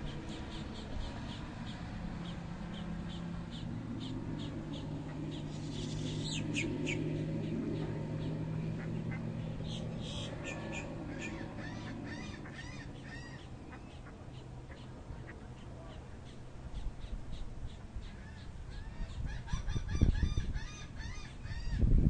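Birds calling in runs of short, repeated high calls over a steady low hum, with some low thumps near the end.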